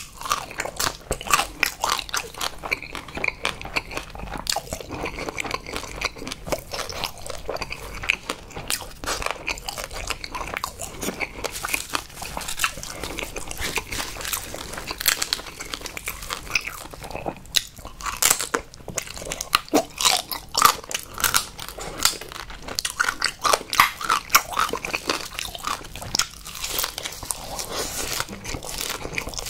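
Close-miked eating of spicy marinated raw crab with rice: a dense, unbroken run of short crunches, bites and chewing as the crab pieces are eaten, busiest about two-thirds of the way through.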